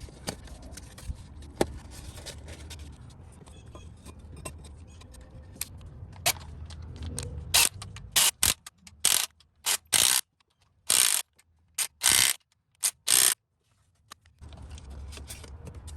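Hand ratchet wrench working a fastener: scattered light clicks, then a series of about nine short, loud ratcheting strokes with brief pauses between them in the second half.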